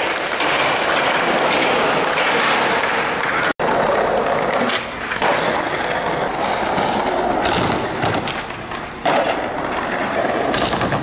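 Skateboard wheels rolling over concrete, with a few sharp knocks of the board against the ground. The sound drops out for an instant about three and a half seconds in.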